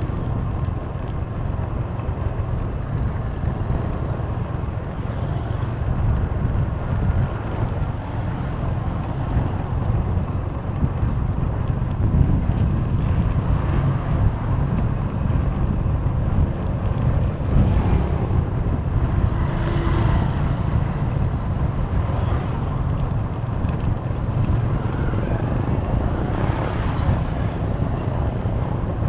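Steady low rumble of road and wind noise from a moving vehicle, with other traffic passing now and then.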